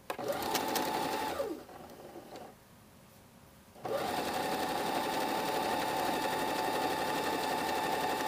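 Husqvarna Viking domestic sewing machine stitching a seam: a short run that slows with a falling whine and stops about two seconds in, then after a brief pause it starts again about four seconds in and runs steadily.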